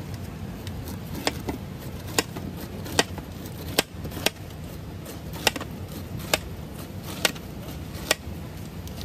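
A large kitchen knife peeling the rind off an upright pineapple in downward strokes, each stroke ending in a sharp knock on the cutting board, about nine in all, roughly one a second. A steady low din runs beneath.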